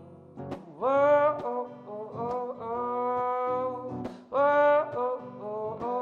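A man singing live with his own strummed acoustic guitar, holding several long sung notes over the chords.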